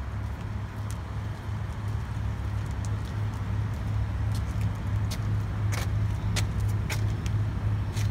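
A motor running steadily with a low, evenly pulsing hum. A few light clicks come in the second half.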